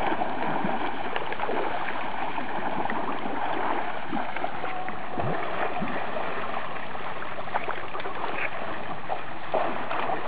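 Steady splashing and churning of river water as two young elephants wallow and are scrubbed while bathing, with a few sharper splashes near the end.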